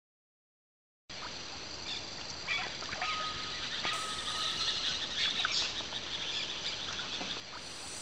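Silence for about a second, then Amazon flooded-forest ambience: birds calling over a steady, high-pitched drone.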